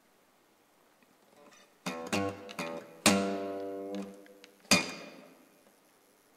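Acoustic guitar strumming a few chords, starting about two seconds in; the loudest chord, just after three seconds, rings on for about a second, and one last chord sounds near five seconds.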